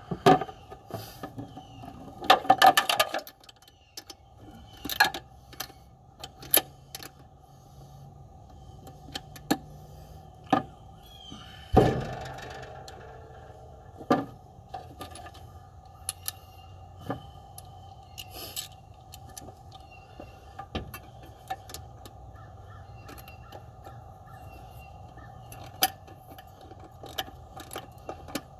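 Scattered metal clicks and clinks of hand tools and engine parts being handled during reassembly, with a short rattling burst two to three seconds in and a sharper knock about twelve seconds in. A steady hum runs underneath.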